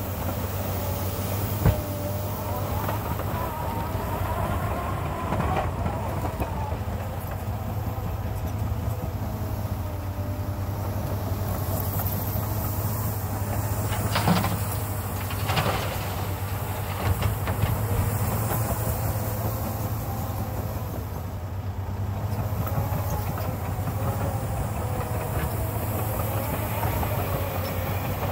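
Caterpillar 953D track loader's diesel engine running under load, with a wavering whine rising and falling as the machine moves. About halfway through, two knocks as the bucket dumps fill into the steel bed of the dump truck.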